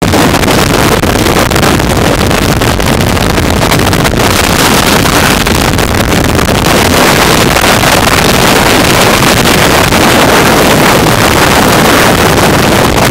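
Tornado wind blasting a surveillance camera's microphone: a very loud, unbroken rush of wind noise that grows a little louder in the second half.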